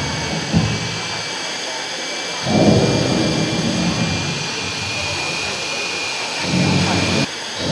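Handheld hair dryer blowing steadily with a thin high whine over its rush of air, drying a wet footprint on cloth. Low voices rise over it twice, and the blowing cuts off abruptly near the end.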